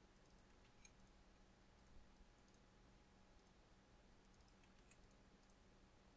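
Near silence: room tone with a few faint computer mouse clicks, about four in the first few seconds, as tracks are opened and edited.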